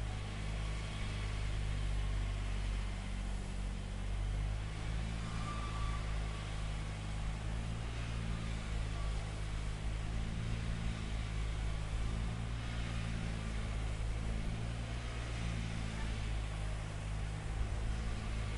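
A heavy engine running steadily, a low even hum that holds unchanged throughout.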